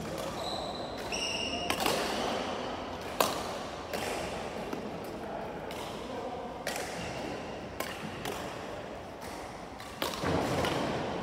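Badminton rally: rackets strike a shuttlecock with sharp, echoing hits every second or two, the loudest about three seconds in. Short high squeaks from court shoes on the floor come in the first second or so.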